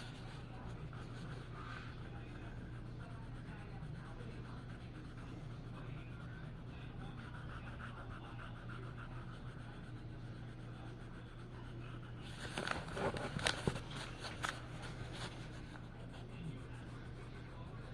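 Faint scratching of a colouring tool on paper over a steady low hum, with a burst of louder scratches and taps about two-thirds of the way through.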